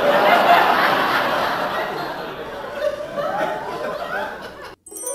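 Laughter with wavering pitch that cuts off suddenly near the end.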